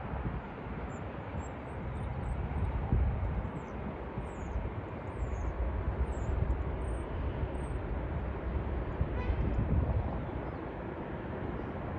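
Airbus A320-family airliner rolling out just after touchdown: a low, steady engine rumble that swells about two seconds in and stays up until near the end. Faint bird chirps sound high above it.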